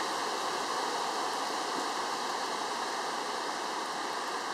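Steady rush of a storm-swollen brook in flood, its water moving fast.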